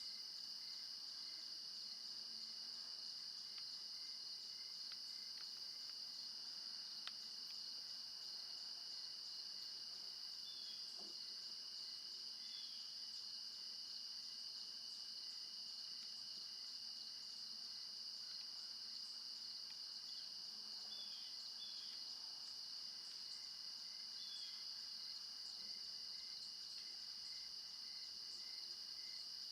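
Steady chorus of crickets and other insects, a continuous high-pitched trill, with a few short chirps now and then.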